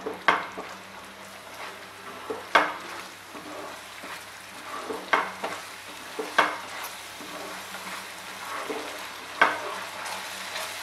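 Slotted spatula stirring thick poppy-seed paste in a nonstick frying pan, scraping sharply against the pan five times, every two to three seconds. A soft sizzle of the cooking paste runs underneath.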